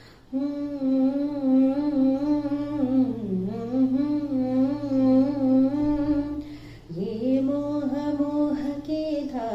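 A woman humming a song melody unaccompanied, in three long held phrases with a light vibrato; the pitch dips about three seconds in.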